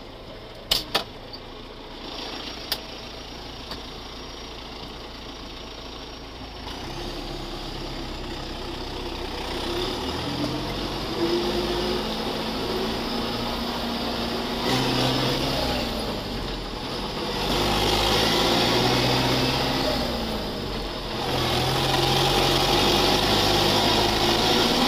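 Belarus MTZ 892.2 tractor's four-cylinder turbodiesel (TKP 6 turbocharger), heard from inside the cab. It idles with a few sharp clicks in the first few seconds, then pulls away and accelerates, the engine note rising and growing louder with the turbo whistle, dipping briefly twice as it changes gear.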